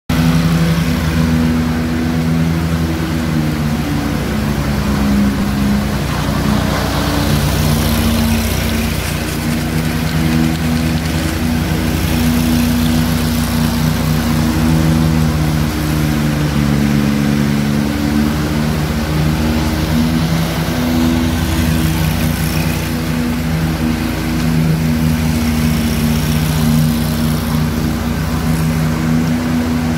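Engines of ride-on power trowels running steadily as the machines finish wet concrete, their pitch wavering slightly up and down.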